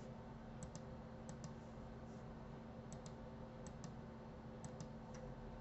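Faint clicking at a computer's keyboard and mouse: about five pairs of quick clicks, spread unevenly, over a low steady hum.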